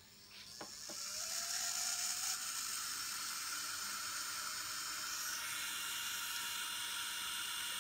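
Electric manicure nail drill's handpiece motor switched on and its speed knob turned up: a whine rising in pitch over the first couple of seconds, then running steady at full power.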